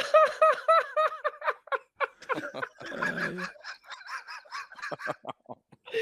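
A man laughing hard: a fast run of high-pitched laughs, about six a second, that breaks after about two seconds into sparser, breathy laughs and wheezing gasps.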